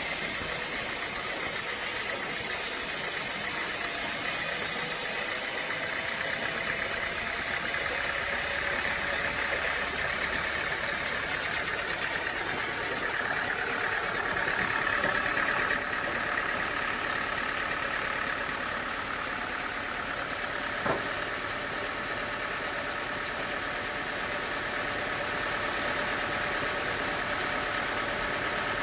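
Engine-driven sawmill machinery running steadily, with a faint whine, and one sharp knock about 21 seconds in.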